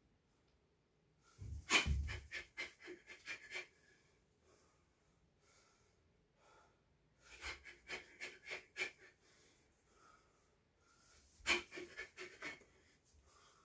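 Three quick flurries of knife strikes on a heavy punching bag, each of six to ten rapid blows, with short sharp exhaled breaths on each strike. The first flurry, about a second and a half in, opens with the loudest, deepest thud.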